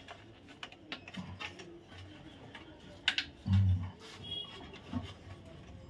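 Small clicks and taps of metal parts being handled as a room heater's heating rod is seated and the hooks of its metal terminal strip are bent inward, with a louder knock and thud about three seconds in.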